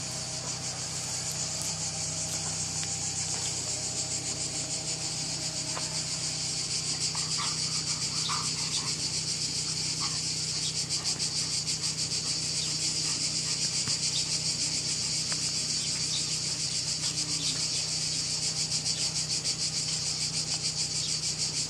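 A steady, high-pitched insect chorus that pulses rapidly and does not let up.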